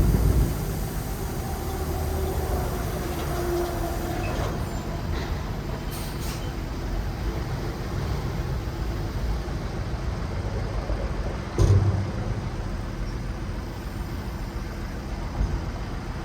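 A 9-cubic-yard dump truck's diesel engine running steadily. A loud clunk comes right at the start, and a louder one about twelve seconds in. A faint whine rises and falls in pitch during the first few seconds.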